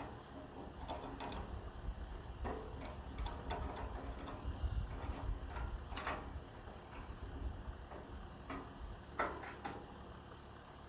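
Irregular metallic clicks and knocks as a pair of loppers is handled and clamped in C-clamps for filing, with a couple of louder knocks about six and nine seconds in.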